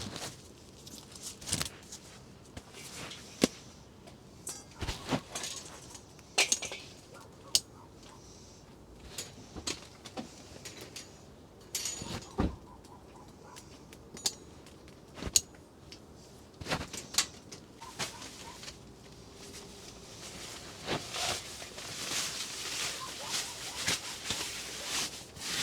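Camping gear being handled and set up: irregular clicks, clinks and knocks, a few seconds apart, with some rustling that grows near the end.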